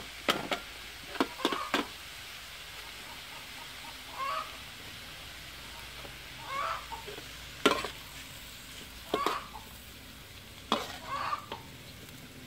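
Chinese kale sizzling steadily as it stir-fries in an aluminium wok, cooking down until it wilts, with a metal spatula clanking against the wok several times. A few short hen clucks sound in between.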